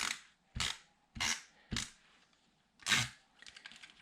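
Hand pressing and patting paper pieces down onto a scrapbook page on a tabletop: five short pats with a papery crackle, four about half a second apart and a last one after a brief pause.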